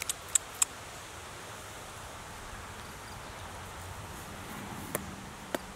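Faint steady outdoor background hiss, broken by a few sharp, short clicks: a quick cluster in the first moment and two more near the end.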